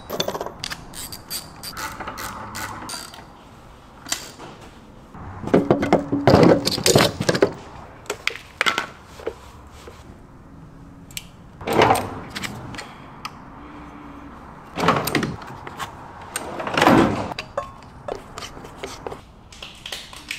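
Hand tools being worked: ratchet clicking and metal tools clinking and rattling in several short bursts, separated by quieter gaps.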